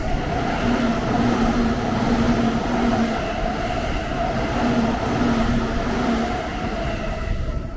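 Train running, a steady rumble with a steady whine over it and a lower hum that comes in twice.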